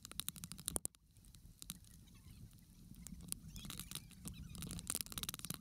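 Faint, irregular clicks and light taps, coming thicker toward the end.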